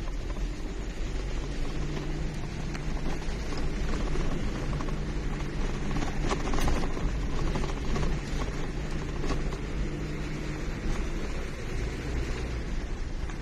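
Car engine running and tyres rolling on a rough road, heard from inside the cabin: a steady low rumble with an engine hum, a little louder and rattlier about six seconds in.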